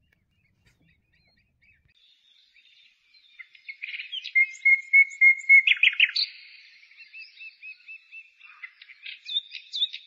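White wagtail singing: a twittering series of high chirps and short trills that starts a couple of seconds in, with runs of quick repeated notes at about five a second.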